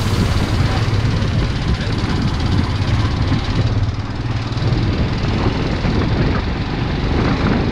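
Royal Enfield Himalayan's single-cylinder engine running steadily under way, with a constant rush of wind and road noise.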